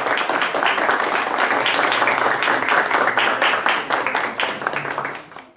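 Audience applauding with many hands clapping, fading out near the end.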